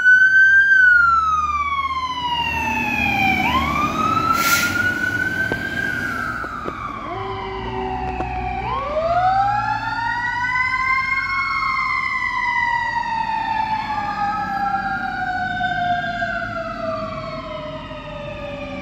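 Fire engine siren wailing, each cycle rising quickly and falling slowly, several times over. There is a short hiss about four and a half seconds in, and the siren grows fainter near the end as the truck pulls away.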